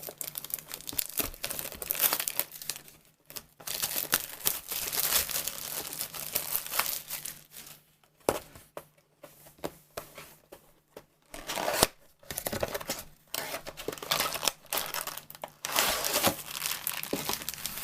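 Plastic and cardboard packaging of a trading-card booster box crinkling and tearing as the box is opened. It comes in rustling stretches broken by short pauses.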